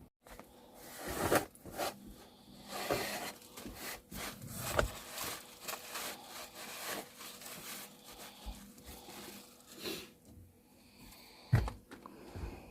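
Irregular scraping and rubbing, with a few sharp knocks, from hands-on work on a rusted van floor.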